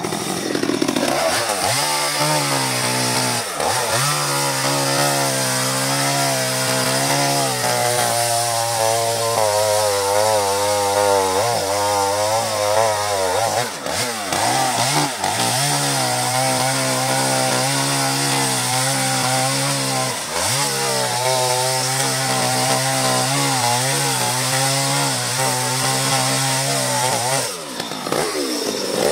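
Two-stroke chainsaw running at high throttle while cutting into a coconut palm trunk. Its pitch wavers continuously and sags briefly every few seconds as the chain bites.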